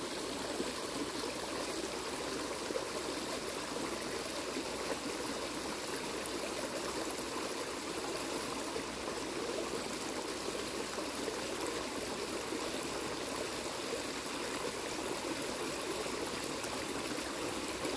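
Small creek running steadily, water spilling over a low step into a shallow pool with an even trickling rush.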